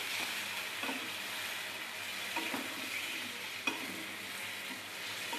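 Jackfruit curry sizzling in a kadai on the gas flame while a spatula stirs it, with a few sharp knocks and scrapes of the spatula against the pan.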